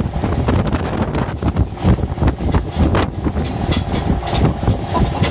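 Tractor engine running while it tows a passenger trailer, with the trailer rattling and knocking as it rides over a bumpy track.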